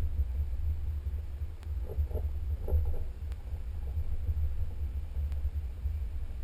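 Low, steady rumble of a Jeep driving slowly over a sandy dirt trail, heard through a hood-mounted camera, with a few faint ticks.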